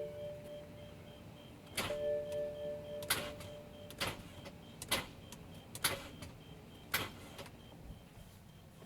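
2007 BMW 335i's N54 starter circuit trying to crank without turning the engine over: a series of sharp clunks about once a second, with a steady hum twice in the first three seconds. The owner says something seems to be locking it up, though he has already replaced the starter twice.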